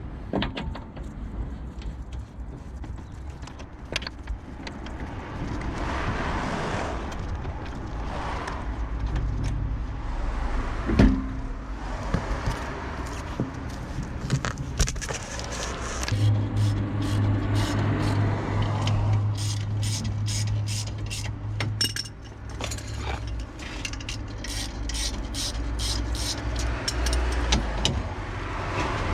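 Metal tools clinking and knocking on a car's rear wheel hub and brake drum, with one sharp knock about eleven seconds in and a run of quick clicks later, over a low steady hum.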